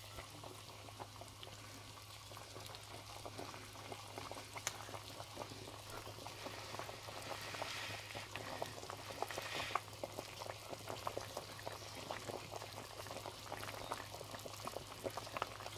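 Pot of vegetable broth at a rolling boil: faint bubbling with many small irregular pops, over a steady low hum.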